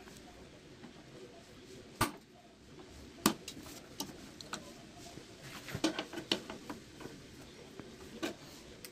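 Scattered sharp metal clicks and taps from long-nose pliers twisting a wire tie around the tubing and bracket of a split-type aircon's outdoor unit. There is a loud click about three seconds in and a quick cluster of them near the middle.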